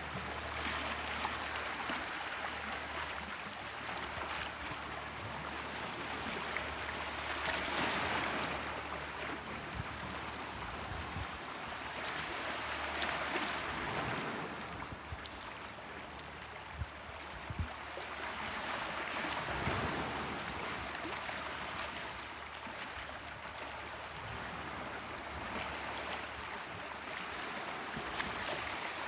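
Gentle Mediterranean waves washing onto the shore, each surge swelling and fading about every five to six seconds.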